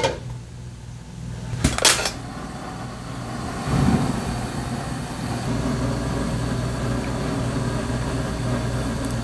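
Steady hum of a kitchen fan, with a sharp knock about two seconds in and a dull thump near four seconds in.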